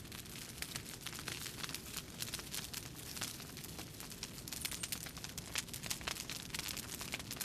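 Continuous, irregular crackling and popping, many sharp clicks a second, over a low rumble.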